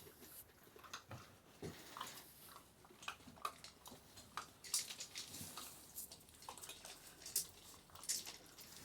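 Faint, irregular clicks, scuffs and rustles of Central Asian Shepherd puppies moving about and chewing.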